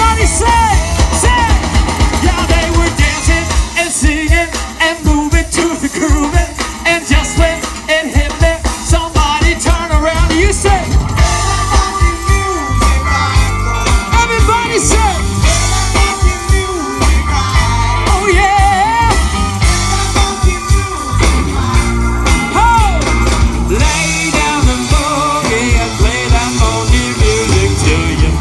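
Live rock band playing with a singer and a steady drum beat.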